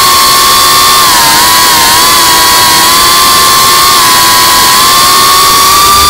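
Geprc Cinelog35 FPV quadcopter's brushless motors and propellers whining at a steady high pitch, recorded by the camera on the drone itself. The pitch dips slightly a couple of times about a second in, over a loud rushing hiss of prop wash and wind.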